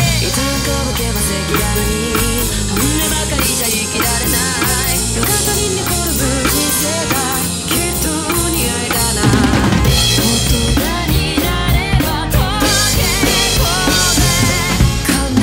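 Acoustic drum kit played with sticks, with snare hits, bass drum and Paiste cymbals in a busy, bouncy groove, over a recorded pop song with a female singer.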